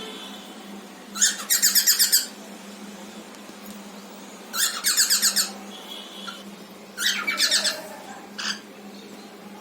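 Cockatiels giving harsh, rapidly pulsed chattering calls in three bouts about a second long, with a short call near the end.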